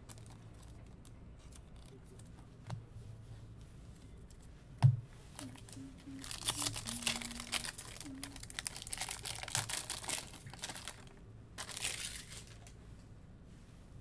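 A trading-card pack wrapper being torn open and crinkled: rustling, crackling bursts from about six seconds in and a shorter one near the end, after a single sharp knock.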